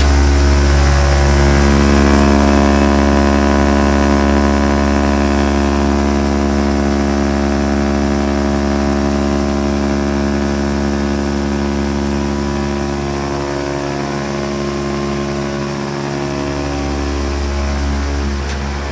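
Steady mechanical drone of running machinery, a loud, even hum with a pitched ring above it, easing slightly in volume in the second half.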